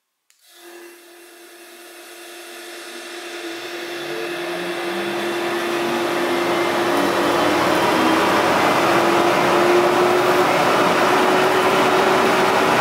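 Oneida V-System 3000 cyclone dust collector's 3 hp motor starting on its slow soft-start ramp: a hum and rush of air that grows steadily louder and higher over about eight seconds, then runs steadily at full speed.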